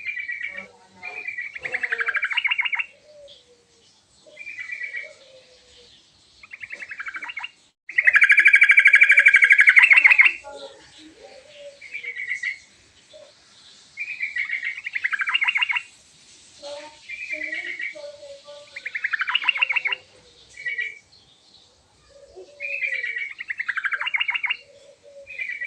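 Yellow-vented bulbul singing: short phrases every second or two, with a longer, louder rapid trill about eight seconds in.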